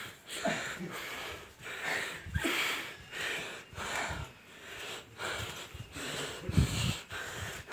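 Heavy, panting breaths from a person out of breath while climbing stairs, a quick puff a little more than once a second, with a few low thumps of footsteps.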